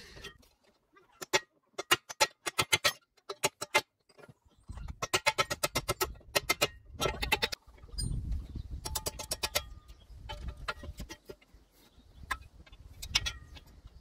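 Hammer tapping on metal: clusters of quick strikes, several a second, with short pauses between, some leaving a brief ring.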